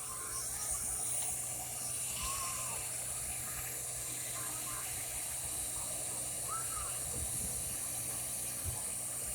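Hot-air plastic welder blowing a steady high hiss while heat-welding TPO roofing membrane.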